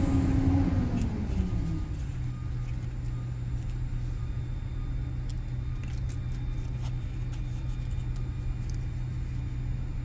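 A steady low motor hum and rumble, after a tone that falls and settles over the first two seconds. Faint taps and rustles of cards and stickers being handled in a cardboard box.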